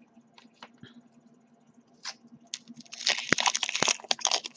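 Crinkling and rustling of Pokémon trading-card packaging being handled: a few faint ticks at first, then dense crackling from about three seconds in.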